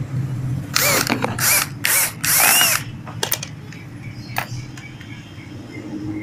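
Small power screwdriver driving the screws that fasten a projector into a motorcycle headlight housing: four short bursts about a second in, each whining up and falling back in pitch. A few light clicks follow.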